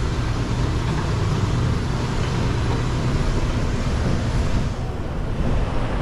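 Large floor fan blowing: a steady rush of air with a low hum, thinning briefly about five seconds in.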